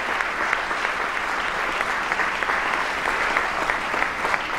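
Audience applauding, a dense steady clapping of many hands.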